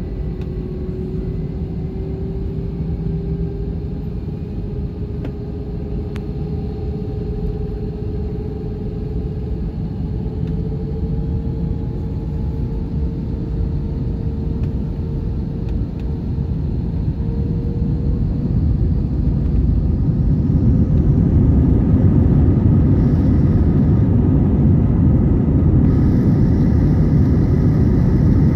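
Airbus A321 jet engines heard from inside the cabin over the wing: a steady whine rising slowly in pitch over the first half, then the low engine noise grows markedly louder past the midpoint as the engines spool up and the airliner begins its takeoff roll.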